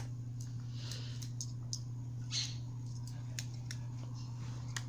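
Scattered light clicks of a black lory's beak nibbling and mouthing at a hand during play, with a couple of brief soft rustling hisses. A steady low hum runs underneath.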